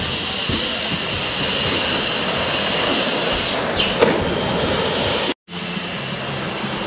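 Steady hiss of churning, aerated water from the water-ramp pool's bubbler. It cuts out briefly about five and a half seconds in, then carries on with a faint low hum under it.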